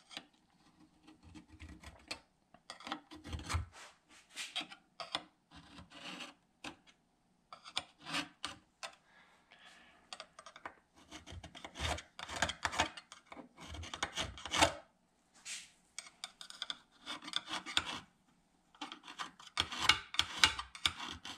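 Steel scriber scratching arcs into a metal plate as it is traced around a pipe: short, irregular scratching strokes with a few soft knocks.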